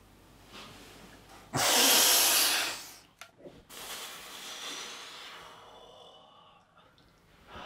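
A person breathing: one long, loud breath about a second and a half in, then softer breaths.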